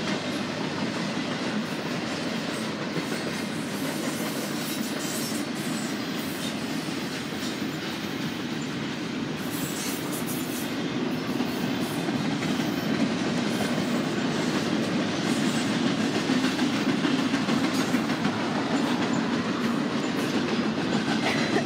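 Double-stack intermodal freight train's container-laden well cars rolling past, a continuous rumble of steel wheels on rail that grows louder about halfway through.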